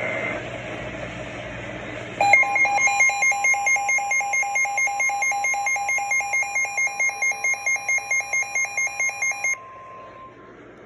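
NOAA Weather Radio alert: after about two seconds of radio hiss, a loud beeping alarm pulses about four times a second over the steady warning alarm tone, which signals a warning is about to be read. The beeping cuts off suddenly near the end, and the steady tone fades out just after it.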